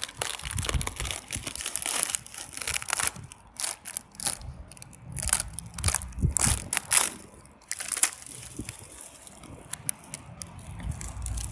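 Thin, papery birch bark being peeled off the trunk by hand: dry crackling and crinkling, dense for the first few seconds, then in scattered bursts.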